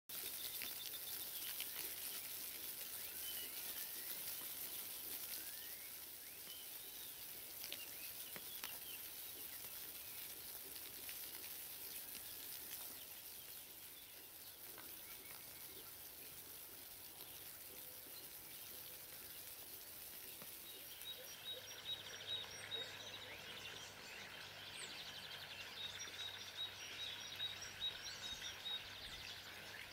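Small birds chirping and calling faintly over a high background hiss. About two-thirds of the way in, the hiss eases and a bird twice gives a quick run of short, evenly spaced high notes.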